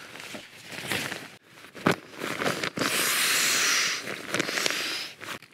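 Waterproof nylon fabric rustling and crinkling as over-trousers are pulled on and the bivy bag and gear are handled, with scattered small clicks and a denser stretch of rustling near the middle.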